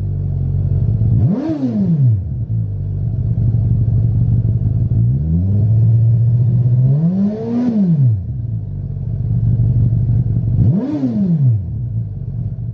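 Suzuki GSX-S1000's 999 cc inline-four through its stock exhaust, idling and free-revved three times. The first and last revs are quick blips; the middle one rises, is held for about two seconds, then drops back to idle.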